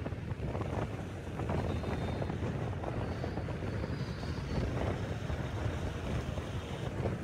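Steady low rumble of a vehicle driving along a road, with wind buffeting the microphone.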